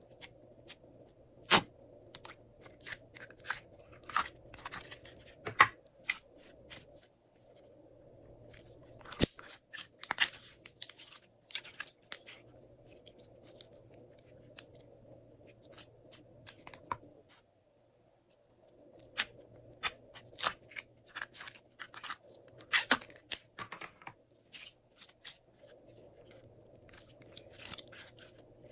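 Hands squishing and folding glossy slime, with irregular sticky clicks and pops in clusters and a short pause about two-thirds of the way through.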